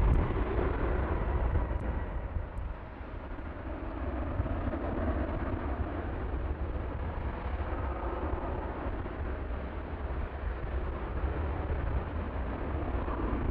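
Jet airliner engines running on the runway as a steady low rumble with a rushing hiss. The sound dips about three seconds in, then an Airbus A321-231's IAE V2500 engines hold steady at takeoff thrust through its takeoff roll.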